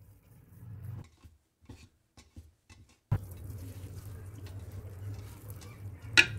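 Small scraping clicks of a tiny wooden spoon stirring thick batter in a miniature pot for about three seconds. Then a steady low hum comes in suddenly, and a single sharp knock sounds near the end.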